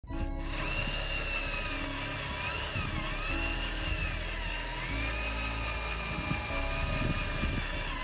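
Electric drive motors of a homemade remote-control model tractor whining as it drags a leveller through loose soil, the pitch dipping and rising with the load, over background music.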